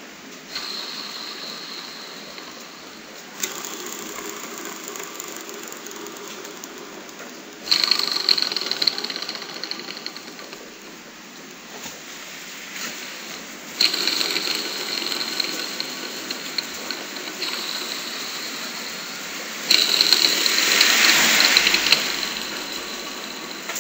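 60FET engine running with a rattling mechanical noise from a failing crankshaft bearing. It is revved up and eased back four times, the last burst the loudest.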